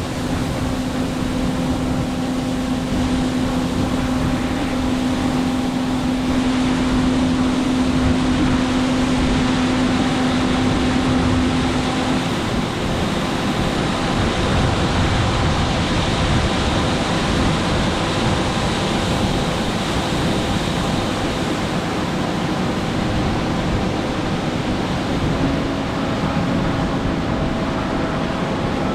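Large harvest machinery running steadily: a constant engine drone over a wide rushing noise. A low hum that is part of it drops out about twelve seconds in and comes back near the end.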